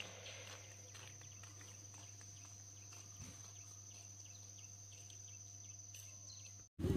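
Faint, steady, high-pitched trill of an insect over a low steady hum; it cuts off suddenly near the end.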